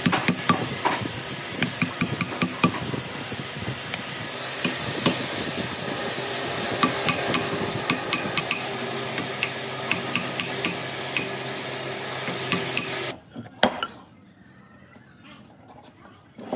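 Wood chisel cutting and levering chips out of a mortise in a tree-stump slab: irregular scraping clicks and taps over a steady hiss. About thirteen seconds in this cuts off abruptly to a quiet room, with a single click soon after and a light knock near the end.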